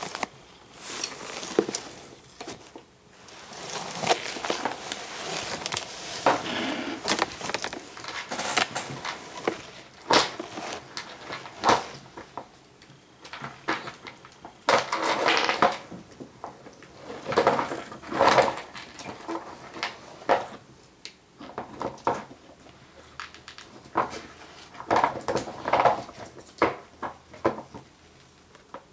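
Irregular rustling, scraping and light knocks, coming in clusters with short pauses between.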